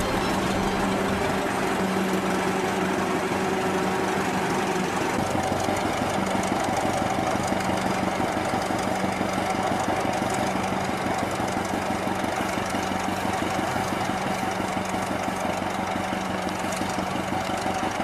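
Engine of a Pioneer 30 antique tractor running steadily with an even, rhythmic beat while it pulls a gang plow. Its tone shifts about five seconds in.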